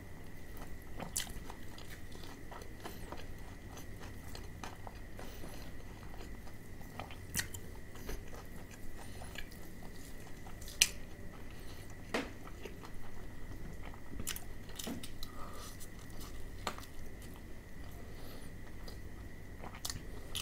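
Close-miked crackling of KFC Hot & Crispy fried chicken being torn apart by hand and chewed: scattered sharp crunches of the fried coating, with one loud snap about 11 seconds in.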